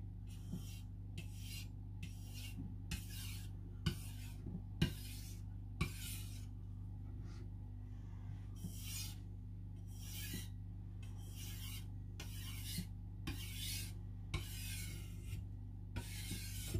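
Knife blade stroked back and forth across a whetstone: a gritty rasp about twice a second, pausing for a couple of seconds near the middle.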